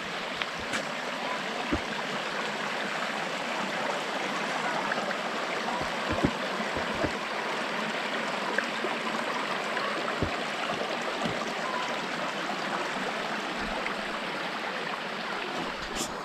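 Shallow rocky forest stream rushing over stones and boulders, a steady even rush of water, with a few faint clicks.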